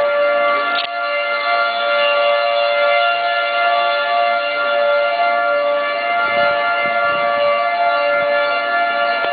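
Outdoor tornado warning siren sounding a loud, steady tone.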